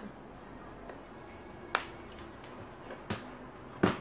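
A make-up brush and plastic blush palette being handled, giving a few sharp clicks. The loudest click comes near the end, over a quiet room background.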